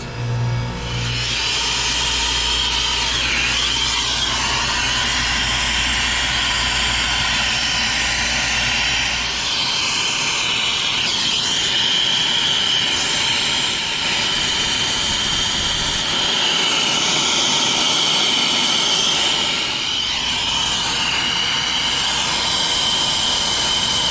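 Air-acetylene brazing torch burning with a steady hiss as copper refrigerant piping is brazed onto a compressor.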